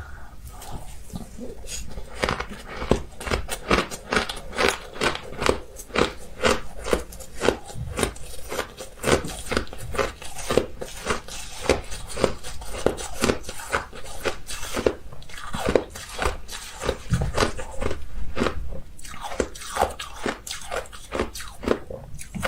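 Ice being bitten and crunched by mouth close to the microphone: a long run of crisp crunches, about two a second.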